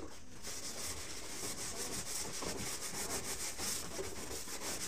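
Utensils being scrubbed by hand: quick, repeated scratchy scouring strokes.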